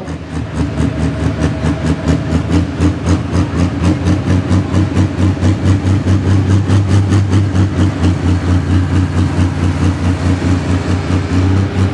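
Pro Stock pulling tractor's turbocharged diesel engine running loud and steady at a near-constant pitch, with a fast, even pulsing beat.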